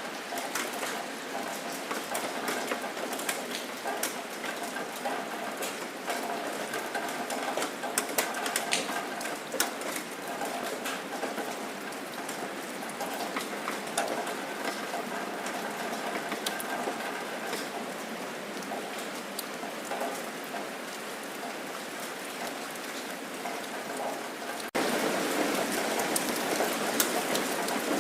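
Rain falling steadily, with many separate drops ticking on surfaces. About 25 seconds in it cuts suddenly to louder, heavier rain.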